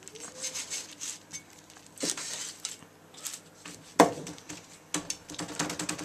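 Large kitchen knife slicing raw chicken breast, the blade knocking down through the meat onto the plate and worktop in a few separate strikes, the loudest about four seconds in, then a quicker run of small knocks near the end.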